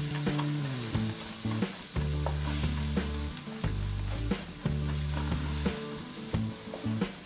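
Scrambled egg with onion and tomato sizzling in a hot oiled kadai while a spatula stirs and scrapes it around the pan, the strokes coming irregularly over a steady hiss.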